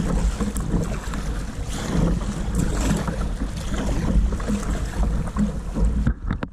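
Wind buffeting the microphone over sea water washing and splashing around a sea kayak being paddled. The wind hiss drops away abruptly near the end.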